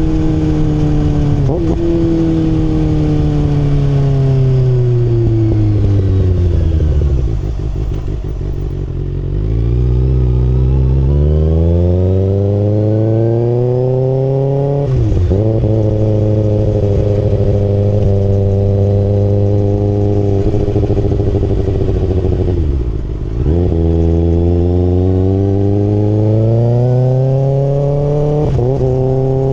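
Kawasaki ZX-6R's inline-four engine under way: the revs fall away for several seconds as the bike slows, then climb again with a quick gear change, hold steady, drop briefly, and climb once more near the end.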